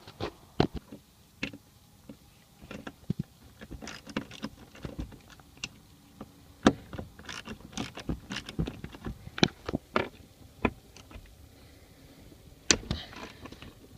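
Irregular knocks, clicks and clatter of objects and a car seat being handled inside a car's cabin as the seat is worked loose and lifted.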